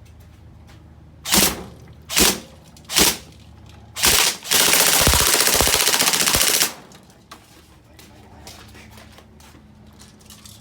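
Mk18 airsoft rifle firing: three short bursts about a second apart, a fourth a second later, then one sustained full-auto burst of about two seconds.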